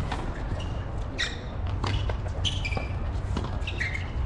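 Tennis rally on a hard court: sharp racquet strikes and ball bounces, with sneakers squeaking on the court surface several times as the players change direction.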